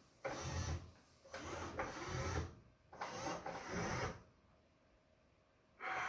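Bambu Lab AMS feeder motor driving the newly inserted filament through its feed tubes: it runs three times, about a second each, stops about four seconds in, and starts again near the end.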